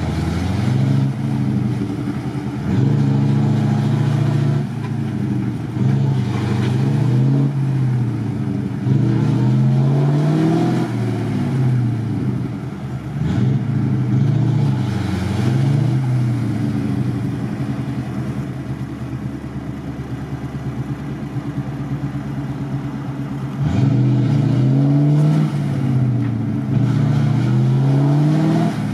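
GAZ-66 truck's engine revving up and down in repeated surges as the truck works through deep mud and water, with a lower, steadier stretch in the middle.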